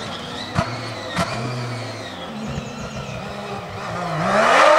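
Peugeot 205 Proto off-road rally car's engine revving hard through its gears at speed, with two sharp cracks about half a second and a second in. Near the end the engine note drops, then climbs steeply as it accelerates again and grows much louder.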